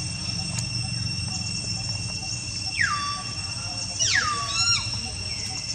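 Steady high drone of insects, broken by two sharp animal calls that fall steeply in pitch, about three and four seconds in. The second call is followed by a quick run of short chirps.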